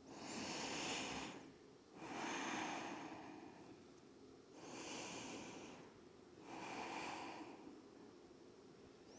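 A woman breathing slowly and deeply while holding a yoga stretch. There are four soft breaths, each about a second long and roughly two seconds apart.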